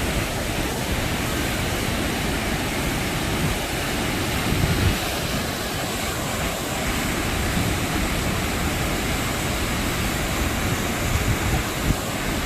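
Waterfall and river water rushing in a steady, even sheet of noise.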